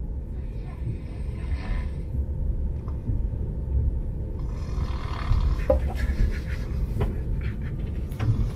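A man snoring heavily, a deep rough snore, over the low rumble of a moving TGV carriage.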